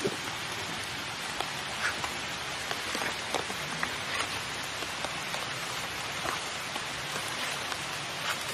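Light rain falling steadily on foliage and leaf litter: an even hiss with scattered faint ticks.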